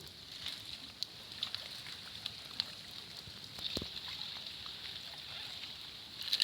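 Pond water sloshing and splashing, with scattered small clicks and one dull knock a little past the middle.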